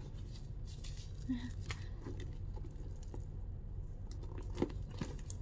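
Metal chain strap of a handbag clinking and rattling as the bag is handled, in scattered light clicks, over a steady low hum.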